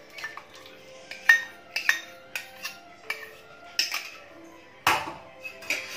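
Steel bowl and ladle clinking against a metal kadhai as curd is emptied from the bowl into the curry: about a dozen irregular sharp metallic clinks, each with a brief ring.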